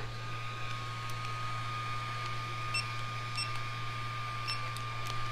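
A steady high-pitched electrical whine over a low hum, with a few faint short ticks.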